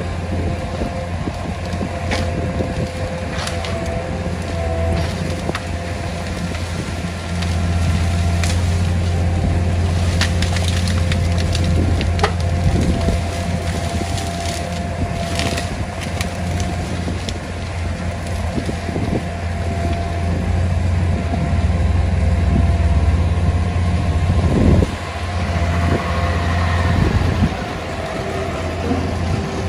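A skid-steer loader's engine running steadily under load while its bucket scoops and crushes dry palm fronds and branches, with scattered cracking and snapping of wood. A garbage truck's engine runs alongside, and there is a sharp knock near the end.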